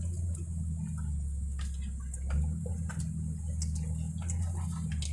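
Ford F-250 pickup's engine running at low revs, heard from inside the cab as a steady low drone. Scattered light ticks and scratches come from brush and twigs rubbing the truck's body.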